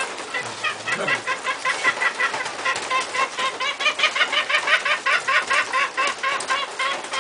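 An animal calling in a rapid, even series of short, high calls, about three or four a second, starting about half a second in.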